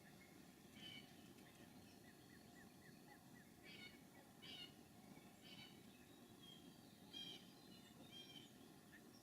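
Faint bird calls over a low hiss: scattered short chirps, and about two seconds in a quick run of high ticks, about five a second.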